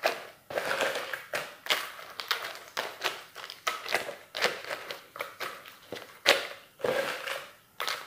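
Steamed sea crabs' hard shells crunching and clicking as gloved hands press them down into a plastic tub. Sharp irregular cracks come one after another, a few standing out louder.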